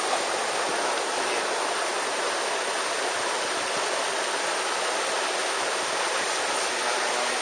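Mountain headwater stream rushing over rocks, a steady, even hiss of flowing water, running high after rain.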